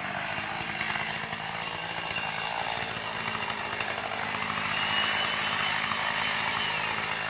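Gasoline chainsaw running steadily while cutting into a wood carving. It gets a little louder about halfway through.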